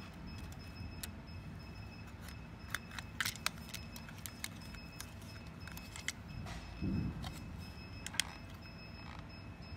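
Scattered sharp clicks and taps as a circuit board is handled and pressed into a plastic infusion pump housing, with a dull thump about seven seconds in.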